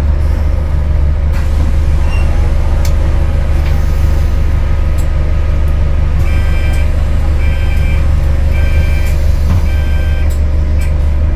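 Interior drive noise of an Alexander Dennis Enviro400H MMC hybrid double-decker bus: a steady low rumble with faint drivetrain tones. About six seconds in, four short electronic beeps sound roughly a second apart.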